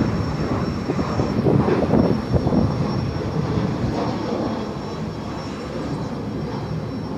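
Boeing 737 jet engines running at takeoff thrust: a loud, rough rumble with a thin steady high whine over it, easing a little in the second half.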